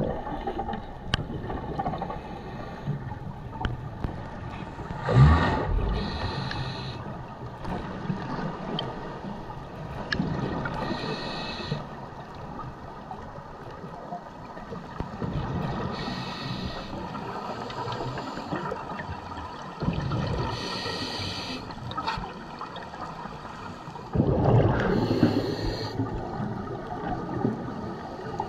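Underwater scuba breathing through a regulator: a hiss on each inhale and a bubbling rush on each exhale, repeating about every five seconds over a low steady water rumble.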